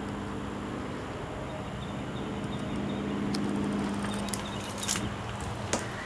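A steady low mechanical hum that swells slightly in the middle, with a few sharp knocks in the last two seconds.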